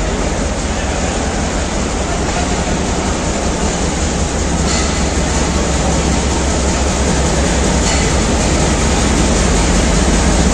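Pakistan Railways GMCU-15 diesel-electric locomotive running alongside the platform, a steady low engine rumble that grows gradually louder, under the station's roof.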